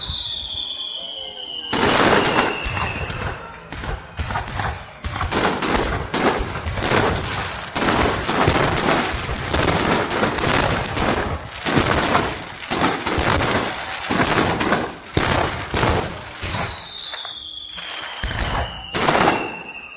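Aerial firework shells bursting in quick succession in a starmine barrage, with booms and crackle coming thick and fast from about two seconds in. Music plays along with the display, as in a synchro fireworks show.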